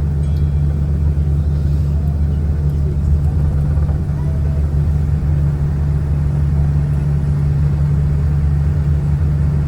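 Steady low cabin drone inside a Boeing 787-9 on the ground after landing, from the engines idling and the cabin air system, with a constant deep hum and no change in level.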